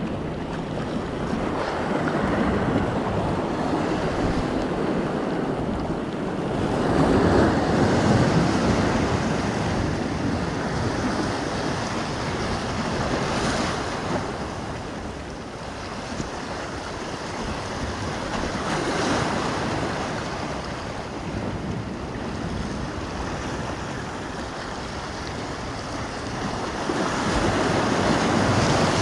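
Ocean waves breaking and washing against the boulders of a rock jetty, the surf swelling and fading every few seconds, loudest about a quarter of the way in and near the end. Wind buffets the microphone underneath.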